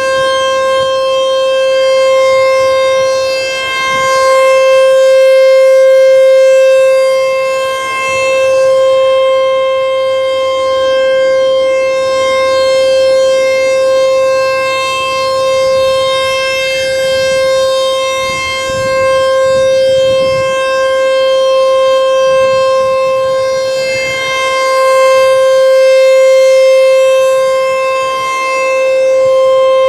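American Signal T-128 outdoor warning siren sounding a steady, unchanging tone for a monthly test, loud. The sound swells and fades about every four seconds as the rotating siren head sweeps toward and away from the listener.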